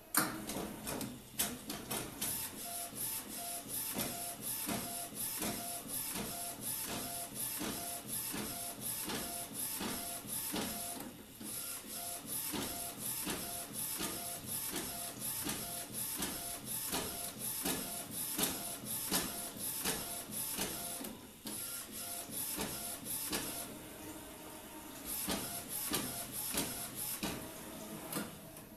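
Desktop A4 UV flatbed printer printing: the print-head carriage shuttles back and forth in a fast, regular rhythm of motor whine and clicks, easing off briefly a little past two-thirds of the way through.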